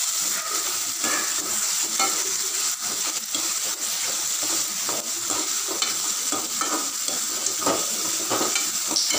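Sliced onions and tomatoes sizzling in oil in a metal kadai while a spatula stirs and scrapes them: short scraping strokes about once or twice a second over a steady sizzle. The onions and tomatoes are being sautéed until lightly softened.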